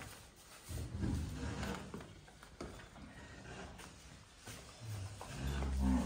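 Cow lowing: two deep moos, one about a second in and a louder one near the end.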